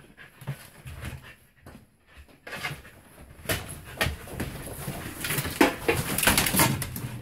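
Carolina Dog sniffing and nosing among stored bags and bins while hunting for rats, with quick rustling and scuffing sounds that become busier in the second half.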